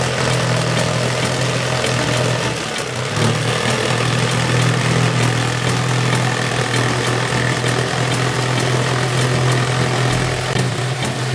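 An electric woodworking power tool running steadily, with a strong low hum and a brief dip in level about three seconds in.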